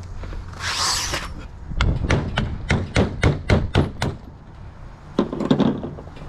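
A brief scraping rush, then a run of about ten sharp knocks, about four a second, as a tool works on the UTV's axle assembly, with a duller knock near the end.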